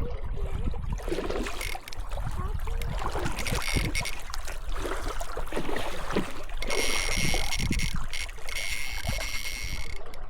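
Wind rumbling on the microphone, with a high steady mechanical whirring twice: briefly a few seconds in, then again for about three seconds later on.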